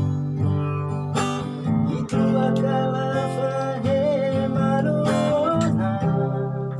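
Acoustic guitar strummed by hand, playing chords, with a singing voice holding a long note over it through the middle.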